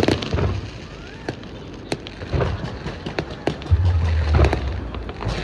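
Fireworks going off over the harbour: scattered sharp cracks and pops, with a deep boom near the four-second mark.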